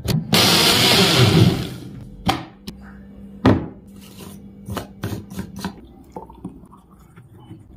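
Electric mixer grinder blending mango lassi in a loud burst of about a second and a half. After it come a few knocks and clicks as the jar is handled, the loudest about three and a half seconds in.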